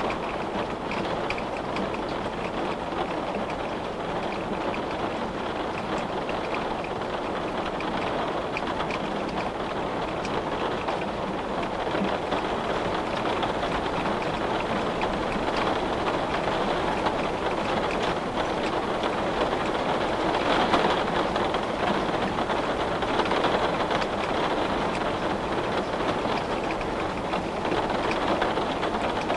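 Steady rain falling, a dense, even patter of drops with no breaks, growing slightly louder about halfway through.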